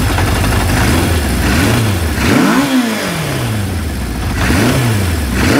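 Honda CB550K inline-four engine on Mikuni VM34 carburettors and a 4-into-1 exhaust, revved twice by hand from idle. Each rev climbs quickly and then falls back toward idle, showing a crisp throttle response and a clean return to idle.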